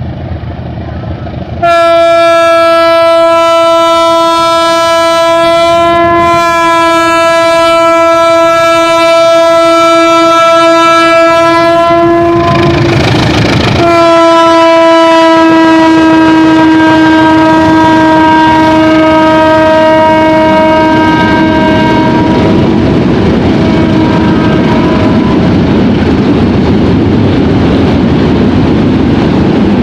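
Air horn of a CC 201 diesel locomotive fitted with a CC 202 horn trumpet, sounding two long blasts of about ten seconds each on one steady pitch, the first starting suddenly and the second fading away. After that, the train runs past with wheels clacking over the rail joints.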